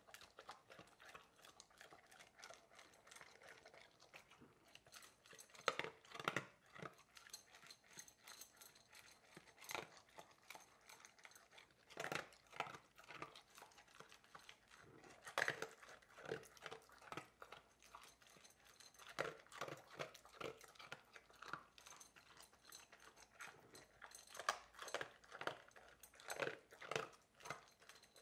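Labrador retriever eating dry kibble from a glass bowl: crisp crunching and chewing in irregular clusters, with quieter stretches between.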